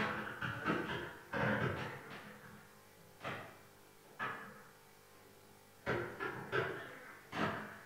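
A man speaking into a lectern microphone, in short phrases separated by pauses.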